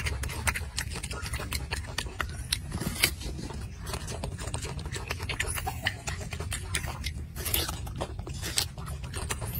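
Golden snub-nosed monkey chewing a mouthful of apple close up: rapid, irregular crisp crunches and clicks over a steady low rumble.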